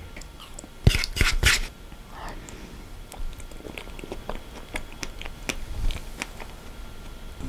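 Close-miked mouth sounds of eating a spoonful of soft ice cream: wet lip smacks and clicks, with three sharp ones in quick succession about a second in, then smaller scattered clicks.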